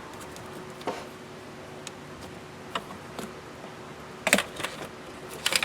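Scattered clicks and rattles of a plastic PCV line and its fitting being worked loose, with a sharper cluster of clicks about four seconds in and again near the end.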